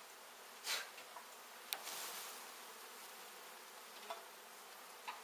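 Honey bee colony buzzing steadily, a low, continuous drone of a large mass of bees. A few short scrapes and clicks from handling the hive break in, the loudest about a second in and another under two seconds in.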